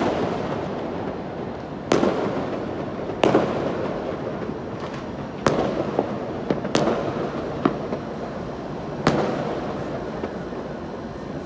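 New Year fireworks going off: about seven sharp bangs at irregular intervals over a steady rumble of many more distant fireworks, which slowly grows fainter.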